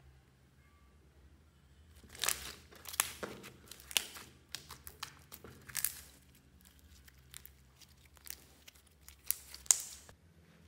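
Slime being stretched and squished by hand, giving sticky crackling and popping clicks. They come in clusters from about two seconds in, thin out, and end with one loud pop near the end.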